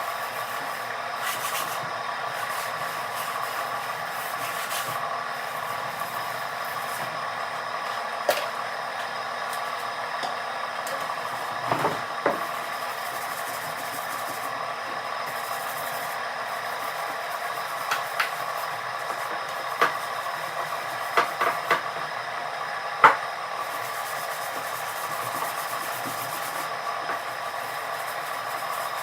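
Hand wet-sanding of body filler on a fiberglass car front lip with a 220-grit reusable sanding pad: a steady rubbing, with a few short sharp knocks scattered through it.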